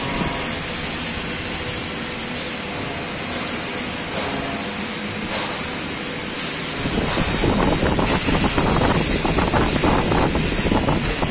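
CNC lathe spindle running with a steel hydraulic piston rod spinning between chuck and tailstock. About seven seconds in, the turning tool engages the rod and a louder, rough cutting noise sets in.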